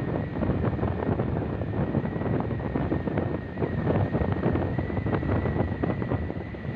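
Wind buffeting the microphone of a moving two-wheeler, over the vehicle's engine and tyre noise on the road, with a faint steady high whine.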